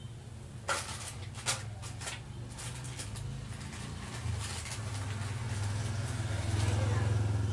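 A low, steady engine hum that grows louder in the last few seconds, with a few brief knocks in the first couple of seconds.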